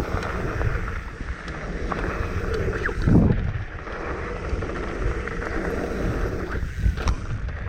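Wind buffeting the microphone of a camera on a moving mountain bike, with the rumble of tyres rolling fast over a dirt jump trail. There is a louder surge about three seconds in.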